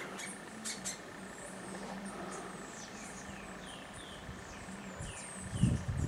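Small birds calling, many short high chirps that slide downward, repeated over a faint steady high hum. A brief low rumble near the end.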